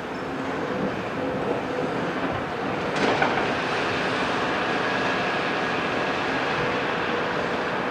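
Heavy tracked excavator diesel engines running while the CAT 374F works its hydraulic boom and bucket, with a single sharp clank about three seconds in. The sound is a little louder from then on.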